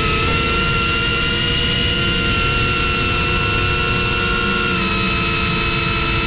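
A Cinelog 35 FPV quad's brushless motors and propellers whining at steady cruise throttle, several tones held nearly level with a slight dip in pitch about five seconds in. Wind rumble on the onboard camera sits beneath the whine.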